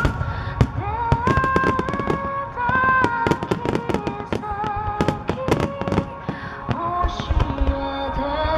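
A fireworks display: many shells bursting in quick succession, a dense run of sharp bangs and crackles. Under the bursts runs a slow ballad played over the public address, its tones held and wavering.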